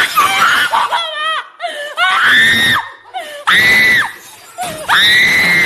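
A person screaming in distress: wavering cries at first, then three long, high-pitched held screams with short pauses between.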